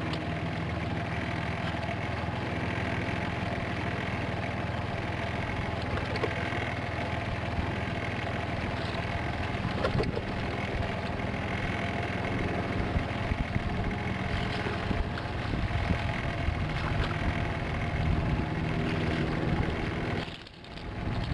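Boat motor running steadily with an even hum, with a few light clicks over it; the hum drops away briefly near the end.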